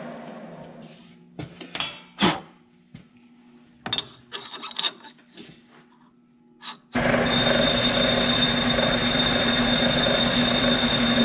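Metal lathe spinning down after a cut, followed by a few seconds of clicks and knocks as the work is checked on the four-jaw chuck. About seven seconds in the lathe starts again and runs steadily with a high whine and a low hum while it bores a 40 mm counterbore in the steel part.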